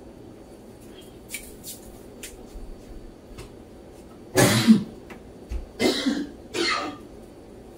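A person coughing three times in quick succession, after a few faint taps of hands working dough on a plastic cutting board.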